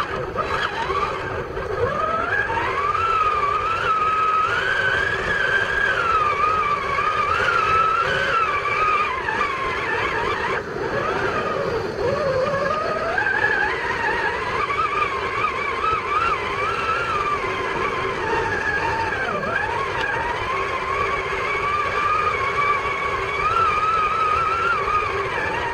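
Radio-controlled Traxxas Summit truck's electric motor and gear train whining, the pitch rising and falling continuously as it is driven.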